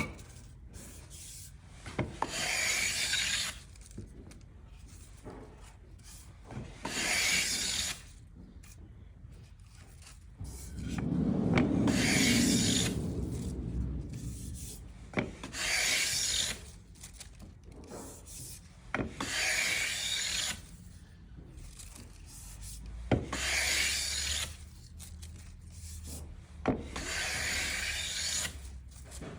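Japanese hand plane (kanna) fitted with a prototype 42.5 mm carbon tool steel blade, taking seven shavings off wood in a cutting test: each stroke is a hissing scrape of a second or two, about every four seconds. The third stroke is longer and fuller, and small clicks come between strokes.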